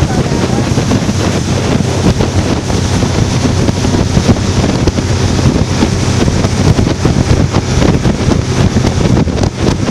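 Motorboat running at speed: loud wind buffeting the microphone and rushing water over a steady low engine drone.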